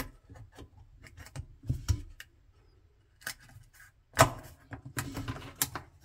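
Plastic dishwasher sump-cover parts clicking and knocking as they are lifted out and handled by hand: scattered sharp clicks, the loudest about four seconds in, then a cluster around five seconds.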